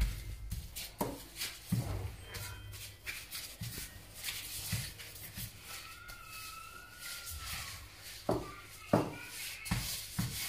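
Gloved hands and a rolling pin pressing and rolling out a sheet of pastry dough on a pastry mat: irregular soft knocks and rubbing.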